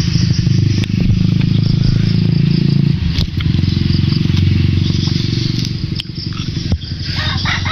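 A small engine running steadily close by, a low pulsing hum that dips about three seconds in and fades near the end, with a few sharp cracks over it as a crisp water apple is pulled apart by hand.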